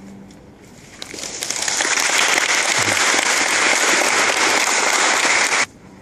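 Audience applauding after a cello piece, building up about a second in and cutting off suddenly near the end.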